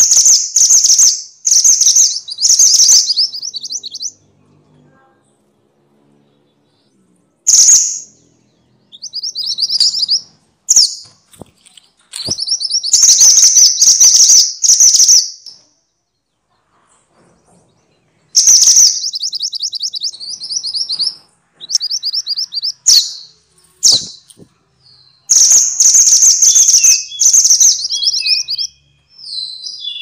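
Minivet song: loud bouts of rapid, high, trilled notes, each bout lasting a second to a few seconds, with short pauses between them.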